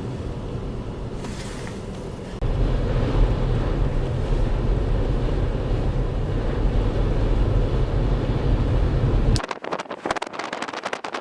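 Blizzard wind buffeting the microphone in a steady, heavy rumble that jumps louder about two and a half seconds in. Near the end it turns abruptly into a thinner crackle of many sharp pops.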